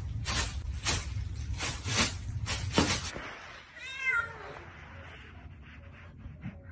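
A run of sharp knocks, two or three a second, over a low rumble. They stop suddenly, and about a second later a domestic cat gives a single meow that falls in pitch. Faint light clicks follow.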